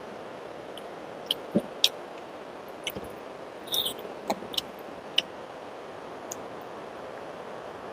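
A person eating a rice meal: irregular wet mouth smacks and clicks of chewing, about a dozen in all, over a steady hiss.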